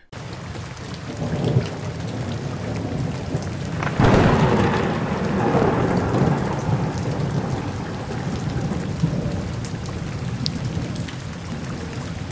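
Steady rain falling on foliage, with a roll of thunder breaking about four seconds in and fading away over several seconds.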